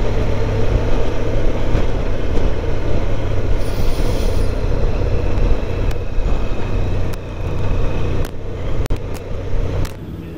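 Motorcycle riding at road speed: the engine's steady low rumble under rushing wind noise on the moving bike. It gets quieter near the end.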